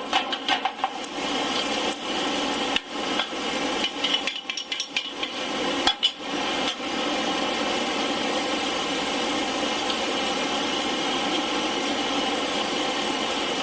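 Blacksmith's workshop during forge welding: scattered metallic clinks, knocks and scrapes of tools on steel over a steady drone. From about seven seconds in only the steady drone remains.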